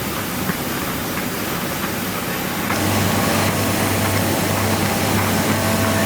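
An industrial CNC knife-cutting machine running with a steady mechanical hiss. About three seconds in it gets louder and a low hum joins it.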